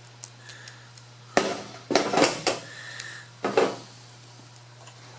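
Scissors snipping through thick VHB tape: a handful of sharp metallic clicks and clacks in two or three clusters, over a steady low hum.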